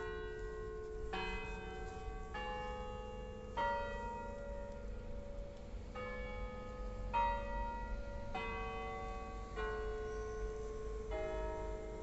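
Stockholm City Hall tower bells playing a slow tune: a new bell note about every second, each at a different pitch and ringing on under the next, with one short pause in the middle.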